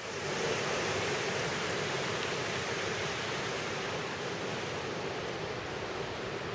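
Wind rushing steadily through snow-covered evergreen treetops, a continuous surf-like hiss with no pitch.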